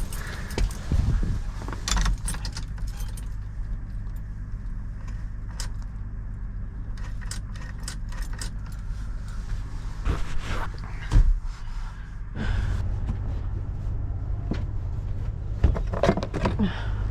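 Keys jangling and clicking at the dump truck's ignition in a series of sharp rattles, over a steady low engine hum that gets louder about twelve seconds in. These are attempts to start a truck that keeps blowing its fuse.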